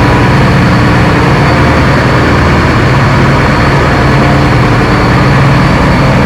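Boat engine running steadily: a constant low engine hum under a loud, even rushing wash.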